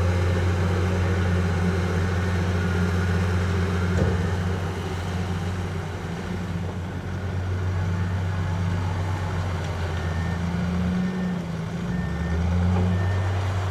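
Diesel engine of heavy earthmoving machinery running with a steady low drone that eases off in the middle and picks up again near the end, with one sharp knock about four seconds in. From about ten seconds in, a reversing alarm beeps at an even pace.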